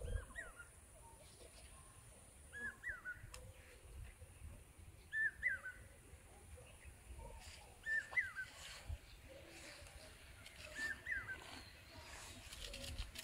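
A bird repeating a short call, a quick up-and-down phrase about every two and a half seconds.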